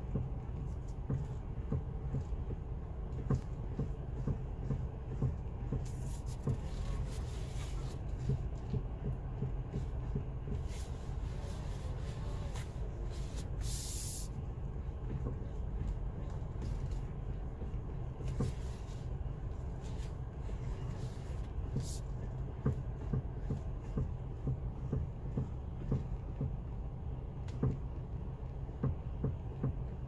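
Fiat 500X steering column clunking again and again as the steering wheel is turned back and forth, with irregular knocks over a steady low hum. The owner suspects a worn steering intermediate shaft.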